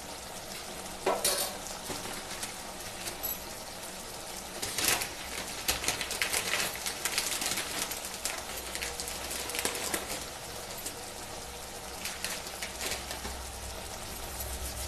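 Thick chickpea and paneer curry bubbling and sizzling in a metal kadai, with scattered pops and spits; the sharpest pops come about a second in and about five seconds in.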